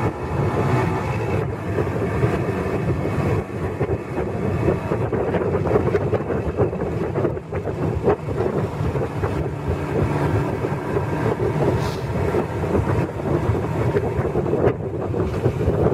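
Motorcycle engine running steadily while riding, mixed with wind buffeting the microphone.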